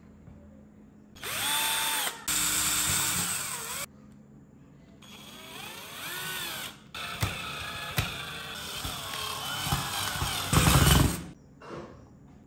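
Cordless drill/driver driving small screws into a wooden chassis plate, in several short runs with the motor whine rising and falling as the trigger is squeezed and eased. A couple of sharp clicks come between the runs, and the last run is the loudest.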